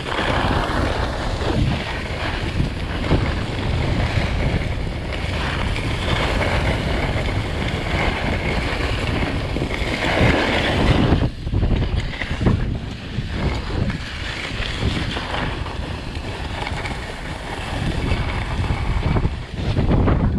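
Wind buffeting the microphone with the continuous hiss and scrape of a ski bike's skis running over groomed snow at speed, with a louder stretch of scraping about halfway through.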